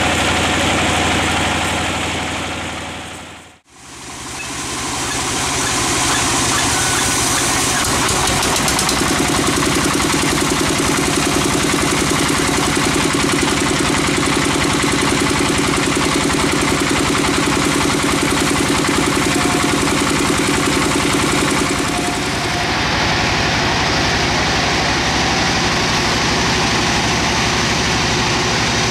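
Sawmill machinery running steadily: the stationary engine that drives a bandsaw mill, with the bandsaw working on the log. The sound briefly fades out and back in about three and a half seconds in, and its tone shifts about eight and twenty-two seconds in.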